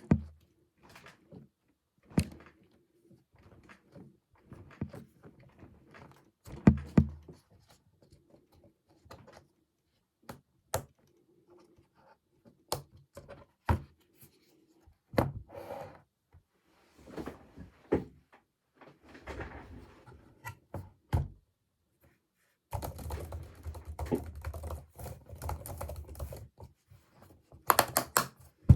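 Scattered clicks, taps and thunks of things being handled, then fast continuous typing on an Apple Magic Keyboard for iPad, starting about two-thirds of the way through.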